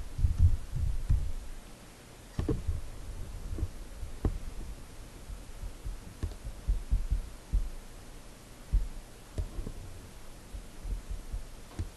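Computer keyboard keystrokes, picked up as a quick run of dull low thumps, then scattered thumps and clicks of keys and mouse as the typing stops and starts.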